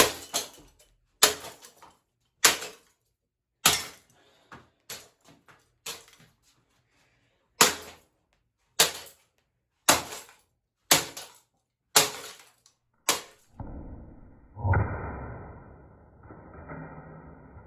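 Axe blows smashing a ceiling fan on the floor: about a dozen sharp, heavy strikes roughly once a second, with a few lighter knocks between. After about 13 seconds the strikes stop and a duller, muffled noise follows.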